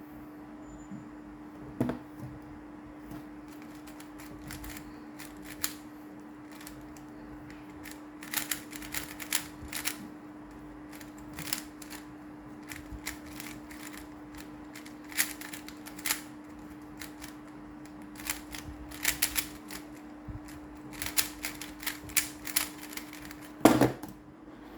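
GAN Swiftblock magnetic 3x3 speed cube being turned fast in a speedsolve: bursts of rapid plastic clicking and clacking, with a louder knock near the end. A steady low hum sits underneath.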